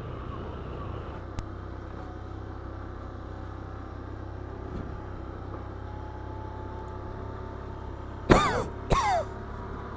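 ATV engine running steadily at trail speed, a low hum. Near the end come two short, loud sounds that fall in pitch.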